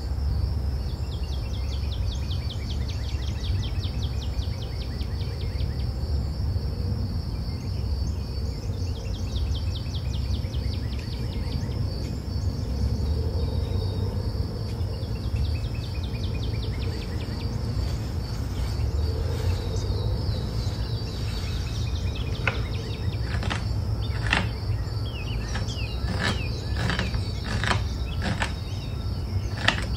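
Kitchen knife chopping an onion on a wooden cutting board: a string of sharp, irregular taps about one a second, starting about two-thirds of the way in. Under it, a steady high pulsing chirr and a low rumble.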